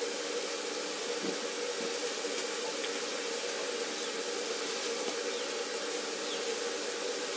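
A steady hiss with a constant low hum underneath.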